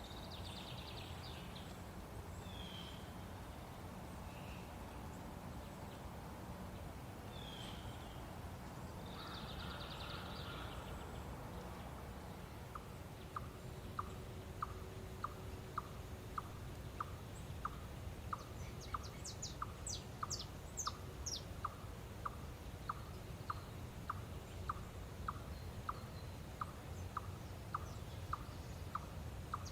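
Outdoor natural ambience with a steady low background hum and scattered bird chirps for the first ten seconds or so. From about halfway on, a very regular ticking call repeats about twice a second, with a brief quick run of higher ticks in the middle of it.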